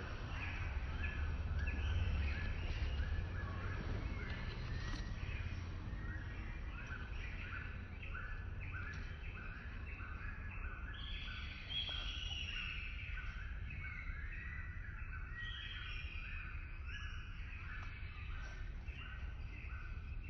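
Forest ambience with birds calling: a short call repeats about twice a second, with a longer, higher call about twelve seconds in, over a steady low rumble.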